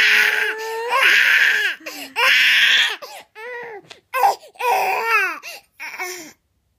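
Baby crying: loud drawn-out wails for the first few seconds, breaking into shorter sobs, then stopping abruptly about a second before the end.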